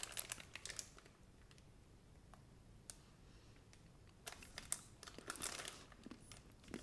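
Foil wrapper of a chocolate bar crinkling in the hand, briefly at the start and again for a couple of seconds past the middle, with quiet between.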